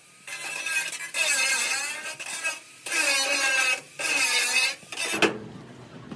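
A handheld power tool runs in several bursts of about a second each, its pitch dipping and recovering as it is pressed to the work. A sharp clink comes near the end.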